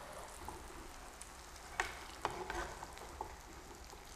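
Batter-coated potato and cheese balls deep-frying in hot oil in a kadhai over a medium-low flame: a faint steady sizzle, with a few sharp clicks through the middle.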